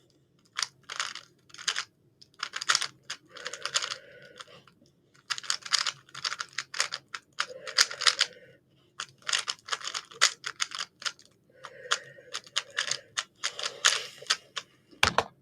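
Rubik's cube being turned quickly by hand: bursts of rapid plastic clicking and rattling as the layers are turned, broken by short pauses between move sequences.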